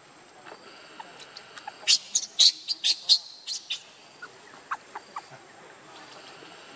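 Baby macaque giving a rapid run of about ten short, shrill squeals about two seconds in, then a few fainter ones, as it is pushed out from under its nursing mother.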